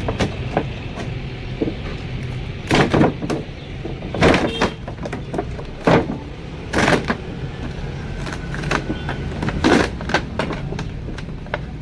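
A series of knocks or bangs: four strong ones a couple of seconds apart, with lighter clicks between, over a steady low rumble.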